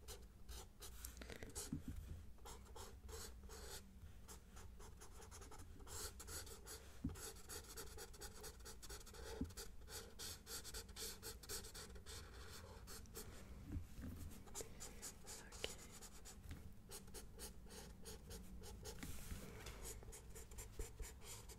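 Pencil sketching on the paper of a sketchbook, close to the microphone: a continuous run of quick, light scratching strokes.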